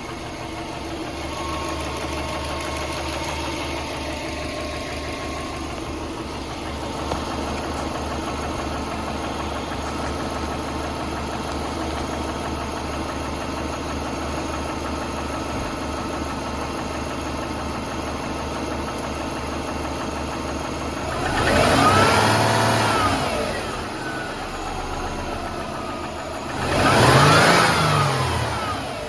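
Subaru EJ20 flat-four engine idling with a rapid, even tick/knock, whose cause is unknown. Near the end the engine is revved up and back down twice.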